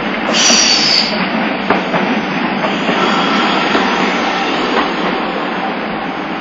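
Nagasaki Electric Tramway streetcar running past close by on street track, a steady rumble with faint clacks from the wheels, and a brief high squeal about half a second in.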